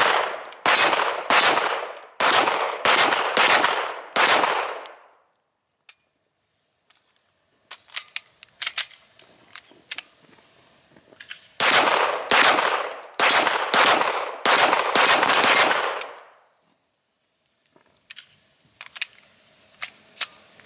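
Semi-automatic pistol fired in two quick strings of about seven or eight shots each, a few seconds apart. Between and after the strings come small faint clicks from handling the gun.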